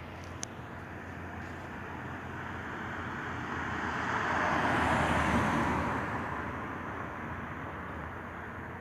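A vehicle passing by: its road noise swells, peaks about halfway through, then fades away, over a steady low hum.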